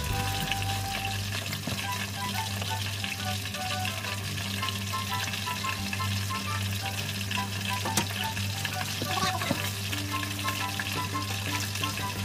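Food frying in hot oil: a steady, dense sizzle throughout, with one sharp click about eight seconds in.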